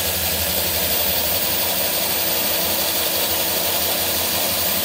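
Cordless drill running steadily at full speed, its 3/4-inch bit boring a dowel hole through a pine 2x3 board.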